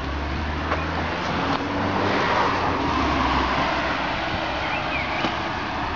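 A motor vehicle passing on the road: a low engine hum and tyre noise that swell in the middle and then fade.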